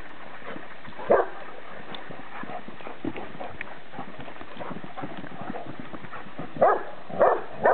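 Dogs at rough-and-tumble play, one giving a single short bark about a second in and three quick barks near the end.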